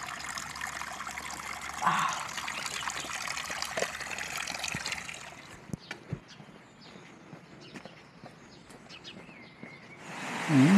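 Water running from a roadside drinking-water spout, a steady trickle that fades away after about five seconds.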